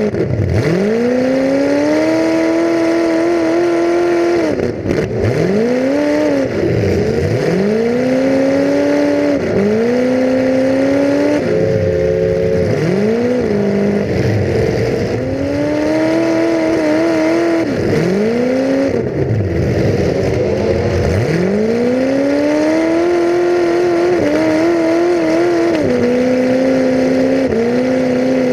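Demolition derby car engine heard from onboard, revving up hard and dropping off again and again, about ten times, as the car repeatedly accelerates and lets off.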